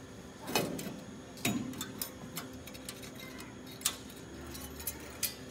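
Air compressor air-filter housing cover being turned and fitted by hand, giving irregular clicks and knocks. The two strongest come about half a second and a second and a half in, with lighter ticks after.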